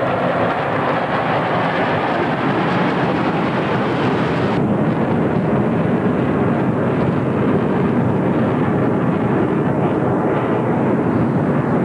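IAI Kfir delta-wing fighter jets flying over, a loud steady jet rumble. The higher hiss in it drops away suddenly about four and a half seconds in.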